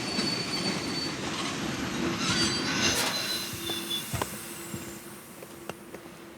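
Train running on the rails with wheels squealing, the sound fading away after about four seconds.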